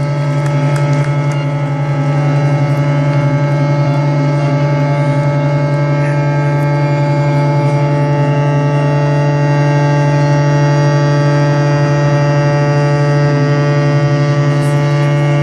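Several ships' horns sounding together in a long, steady chord of different pitches, with one new higher tone joining near the end.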